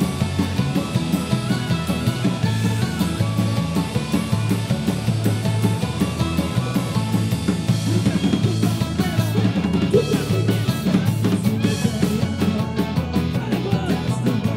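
Celtic punk band playing live: drum kit with bass drum and snare keeping a steady driving beat under electric bass and guitars.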